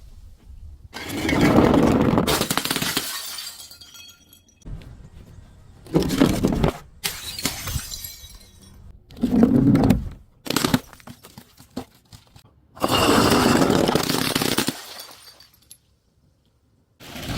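Glass bottles breaking and being crushed: about four loud crunching crashes, with sharp cracks and high tinkling of glass shards between them.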